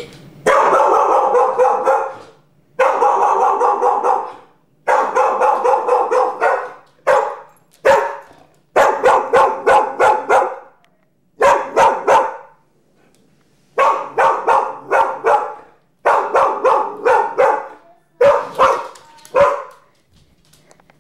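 A dog barking over and over in rapid volleys, each lasting up to about two seconds, with short pauses between them.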